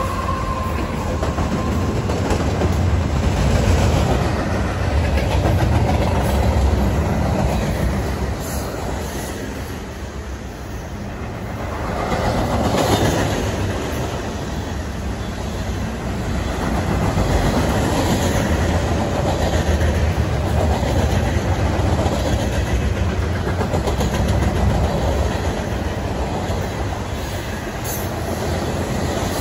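Freight train of covered hoppers and boxcars rolling past at speed: a steady rumble of steel wheels on the rails that swells and eases as the cars go by.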